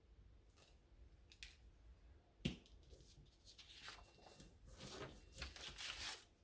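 Quiet handling of pens and paper on a craft table: a single sharp click about two and a half seconds in, then a run of soft scratching and rustling strokes.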